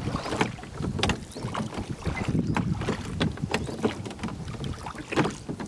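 Two oars being pulled through the water in a rowing boat: irregular knocks and clunks of the oars working in their metal rowlocks over the wash of the water, with some wind on the microphone.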